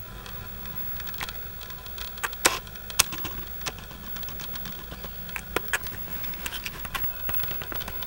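Handling noise on a DSLR's built-in microphone as the camera is reframed: irregular sharp clicks and knocks in two clusters, the loudest about two and a half and three seconds in, over a steady hiss and low hum.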